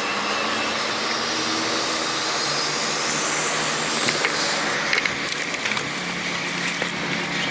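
Chairlift running, a steady mechanical hum with a few sharp clicks and rattles in the second half.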